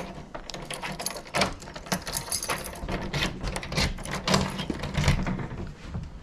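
Rapid, irregular metallic clicking and rattling as small lock parts and hand tools are handled and fitted together during a lock rekey.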